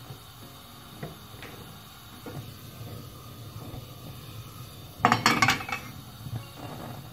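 Non-stick frying pan being handled and set back down on a gas stove's metal grate: quiet scraping and handling, then a burst of metal clattering about five seconds in.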